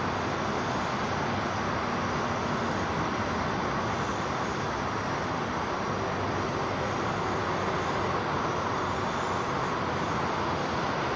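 Food sizzling in a hot frying pan, a steady, even hiss.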